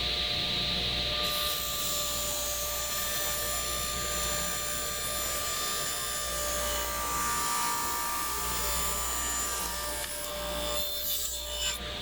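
Table saw running and ripping through a wooden 2x4. The blade bites into the wood about a second in, and the cut finishes near the end.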